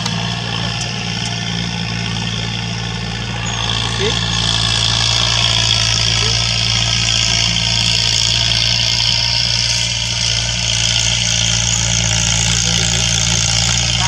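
Farm tractor's diesel engine running steadily under load as it pulls a seed drill through ploughed soil, with a hiss and rattle over the engine note. The sound grows louder about four seconds in.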